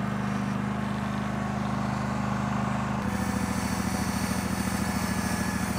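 John Deere 318 garden tractor's Onan flat-twin petrol engine running steadily while the rear hitch lifts the cable plow out of the ground. Its note changes about three seconds in.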